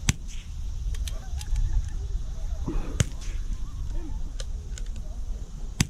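.22 LR rimfire rifle shots: three sharp cracks about three seconds apart, one at the start, one about halfway and one near the end. Fainter clicks fall between them over a low rumble.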